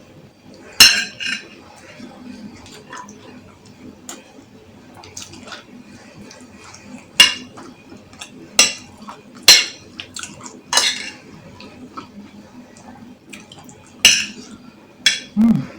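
A spoon clinking and scraping against a bowl while food is scooped up to eat, about seven sharp clinks at uneven intervals.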